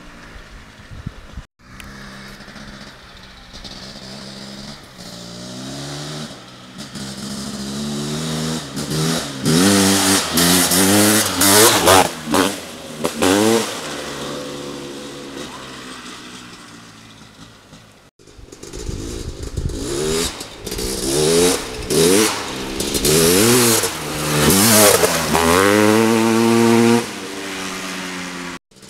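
Honda CR500's big single-cylinder two-stroke engine revving hard through the gears, its pitch climbing and dropping again and again. It swells loud and fades twice, broken by a short gap about two-thirds through.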